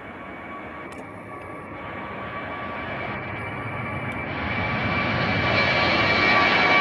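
Airbus A321 jet airliner taking off at full thrust, its engine noise growing steadily louder as it rolls and lifts off, with a steady whine over the rushing noise.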